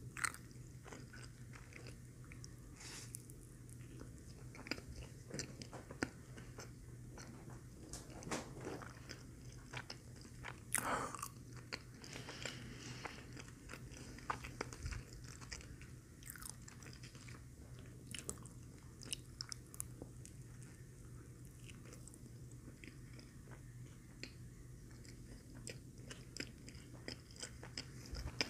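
A person chewing and biting a McDonald's Filet-O-Fish sandwich close to the microphone: soft wet mouth sounds and scattered small clicks, over a steady low hum.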